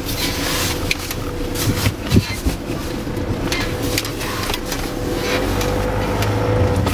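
Inside a car moving slowly over snow: the engine running with road rumble, and frequent short knocks and rattles as the car bumps along. The low rumble grows stronger near the end.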